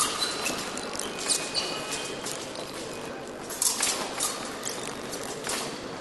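Fencers' footwork on the piste: shoes tapping and squeaking through quick advances and retreats, with several sharp clicks among them.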